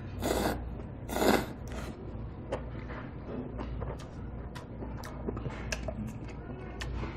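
A person slurping mul-naengmyeon noodles from a bowl: two short slurps in the first second and a half, the second louder. Chewing follows, with small wet mouth clicks.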